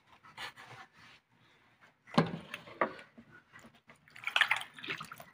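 Handling noises from a large plastic water bottle whose cap has just been unscrewed: a sharp knock about two seconds in, then a short run of rustling and liquid sounds about four seconds in.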